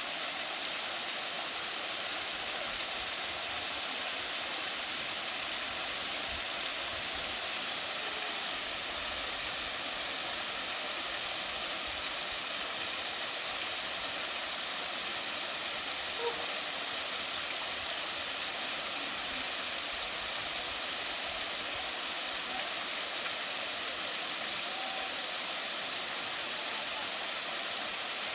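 Waterfall rushing: a steady, unbroken hiss of falling water spilling into the pool below.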